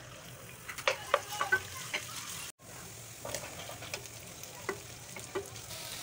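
Sliced garlic and ginger, then sliced onions, sizzling in hot oil in a nonstick wok while being stirred with a wooden spatula, with a scatter of sharp clacks of the spatula against the pan. The sound cuts out for an instant about halfway through.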